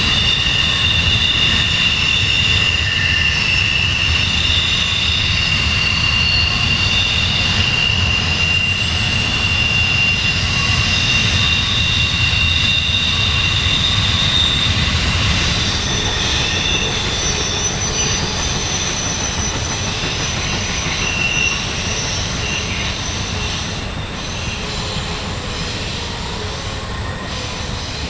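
Train rolling past, steel wheels squealing against the rails in several high, wavering tones over a low rumble. The sound slowly fades in the second half.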